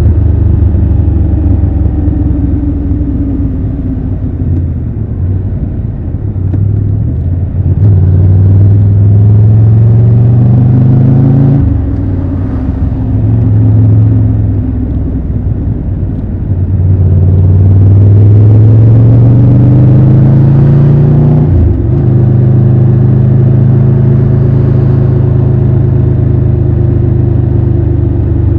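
Triumph Tiger 1200 Rally Pro's inline three-cylinder engine under way. It slows and drops in pitch, then twice pulls up through the revs, each climb cut off sharply by a gear change, and then settles into a steady cruise.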